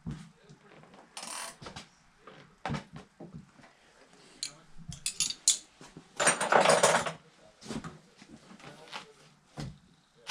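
Scattered metal clicks and clinks of hand tools and mini bike parts being handled during assembly, with a louder rattling scrape of about a second near the middle.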